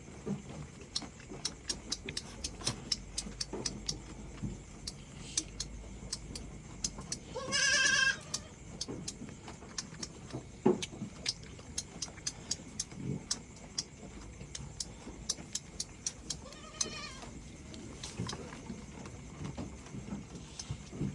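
Goat bleating: one loud, high bleat about eight seconds in and a fainter one a few seconds before the end, over a run of small irregular clicks and smacks.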